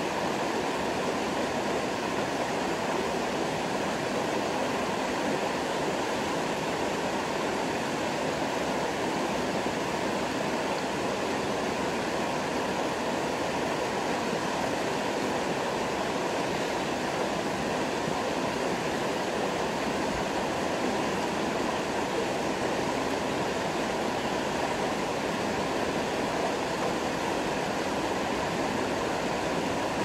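Shallow rocky stream flowing over stones, a steady, unbroken rush of water.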